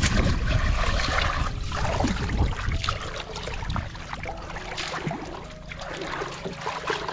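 Water splashing and trickling, with a few short splashes and a softer steady rush later on.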